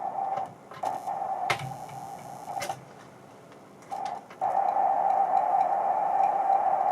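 Electronic noise made on an audio mixer: a band of hissing noise pitched in the middle of the range, cutting out and back in with clicks several times, then holding steady and louder from about four and a half seconds in.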